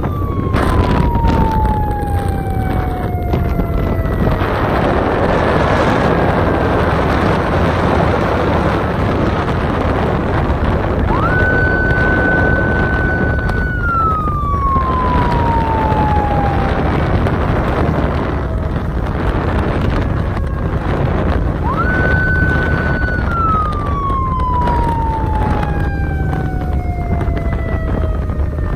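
Wind and road noise from a moving motorbike, with a siren sounding over it: it jumps up to a high tone, holds it for about two seconds, then slowly falls, coming round twice more after one already falling at the start.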